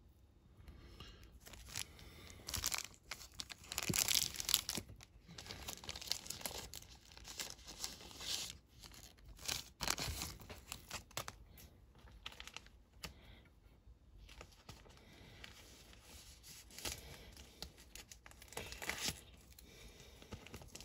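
Clear plastic bags crinkling and rustling in irregular bursts as graded card slabs in them are handled and pulled out. The handling is loudest in the first half and softer later.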